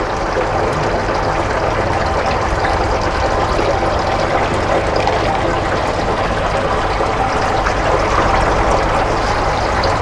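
Steady rush and bubbling of water in an aerated glass bait tank, with a low steady hum underneath.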